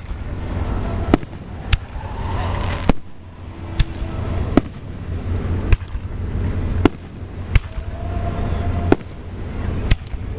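Aerial fireworks exploding in a string of sharp bangs, about ten in ten seconds at uneven spacing, over a steady low rumble.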